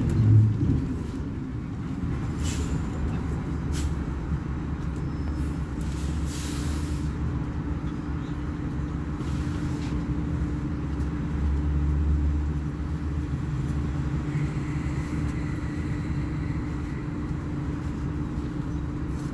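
Volvo B58 bus's straight-six diesel engine running steadily with a low drone. There are brief hisses about 2.5 seconds and 6 to 7 seconds in.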